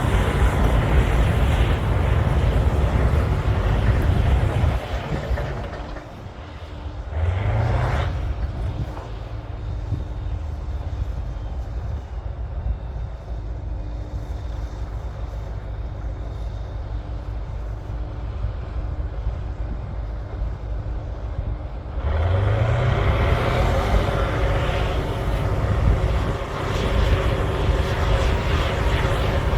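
Cat D9L bulldozer's V12 diesel working hard under load. About six seconds in it drops off, then revs back up with a rising pitch and runs lighter for about a quarter of a minute. Some twenty-two seconds in it revs up again and carries on loud under full load.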